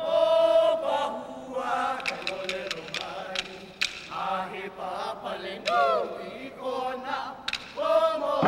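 Men's voices chanting a Hawaiian hula kahiko chant together, with long held notes that waver in pitch. Between about two and four seconds in comes a run of sharp clicks from wooden kāla'au sticks being struck.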